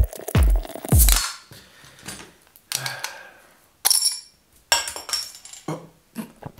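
The tail of an intro music sting fades out. Then a glass beer bottle is opened with a bottle opener: sharp metallic clicks and clinks as the cap is pried off, the loudest a little under four seconds in and again about a second later.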